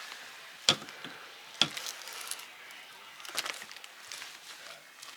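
Broken differential parts from a Lada Niva's front axle (gears, pins, bearings) being handled and knocked against each other. Two sharp knocks about a second apart are followed by lighter clicks and clatter.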